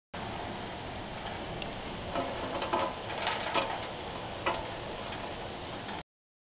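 Steady rain and wind hiss after a storm, with several sharp ticks about halfway through. The sound starts and cuts off abruptly.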